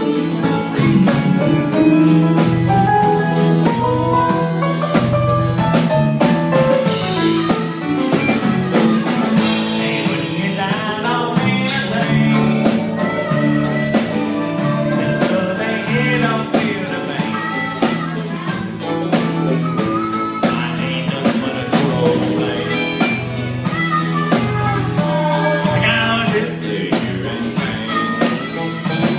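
A live country band playing, with drum kit, bass and guitars under a moving lead melody. There are a couple of cymbal crashes in the first half.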